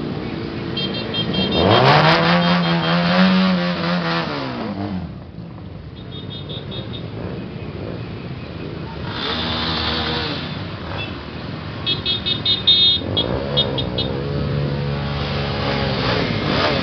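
A column of small motorcycles riding past one after another, engines swelling and falling in pitch as each group goes by, loudest about two seconds in and again near the end, with short bursts of high beeping between.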